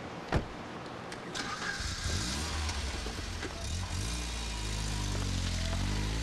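A short sharp knock, then a Toyota Land Cruiser 4500 EFI ambulance's engine starts about a second in and runs as the vehicle pulls away, its pitch dipping and rising again near the end.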